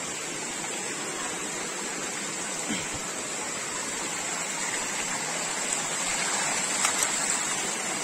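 Shallow stream water running over rocks, a steady rushing that grows slightly louder toward the end.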